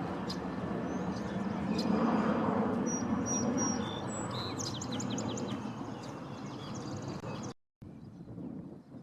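Small birds calling: a few short high notes about three seconds in, then a quick run of chirps, over a steady outdoor background hiss. The sound drops out for a moment near the end.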